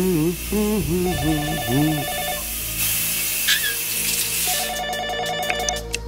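A push-button desk telephone ringing twice with a fast trilling ring, about a second in and again near the end, over the hiss of a running shower. In the first two seconds a man sings wordlessly in the shower, and the first ring overlaps his singing.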